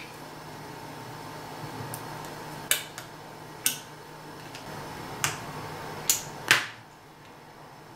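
About five sharp, light clicks of small repair tools (screwdriver and tweezers) on a smartphone's metal mid-frame and flex-cable connector as it is being taken apart, the last two close together. A faint steady hum runs underneath.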